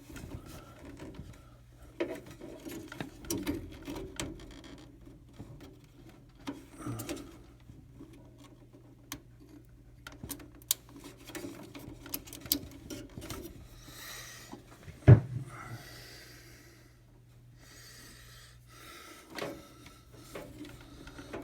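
Hands handling parts inside a desktop PC case while fitting a Wi-Fi antenna wire: scattered clicks, taps and rubbing over a low steady hum, with one sharp knock about fifteen seconds in.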